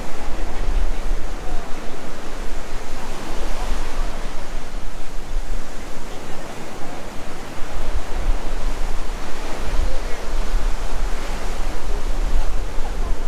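Ocean surf washing onto a beach, a steady rushing, with wind buffeting the microphone in low gusts.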